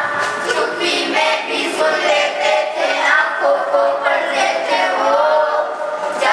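Group of schoolchildren singing a Hindi song together in chorus.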